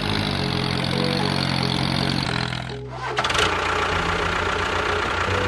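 Tractor engine running steadily, its sound changing abruptly about three seconds in, with a faint tune underneath.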